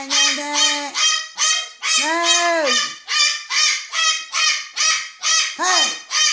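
Pet parrot screaming: loud, harsh, high calls repeated about three times a second without a pause, with a few longer calls that rise and fall in pitch.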